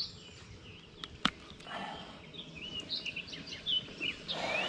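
Several songbirds chirping in a dawn chorus, with many short rising and falling calls. A single sharp click about a second in, and brief rustling near the end.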